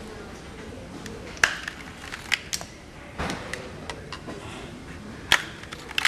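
Irregular sharp clicks and knocks, about half a dozen, the loudest about a second and a half in and again near the end: small metal parts and hand tools being handled during a motorcycle fender eliminator install.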